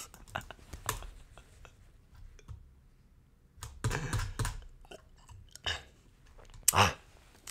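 Scattered clicking of computer keys while a web page is scrolled, with two louder short noises about four seconds in and near the end.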